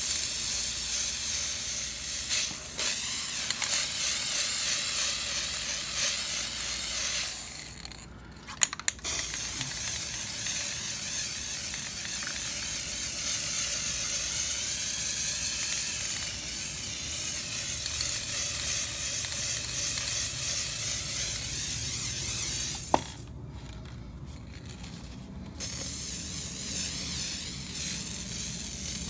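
Aerosol spray paint can spraying in long, steady hisses, with a short break about eight seconds in and another near the end, just after a sharp click.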